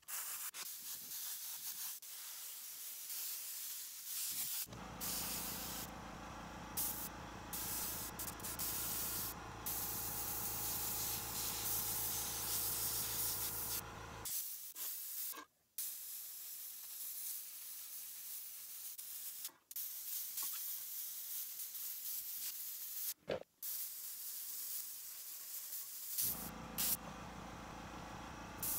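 Airbrush hissing as air is let through in spurts, with several short breaks. An air compressor's motor hums steadily under it for a long stretch from about five seconds in to about fourteen, and again near the end.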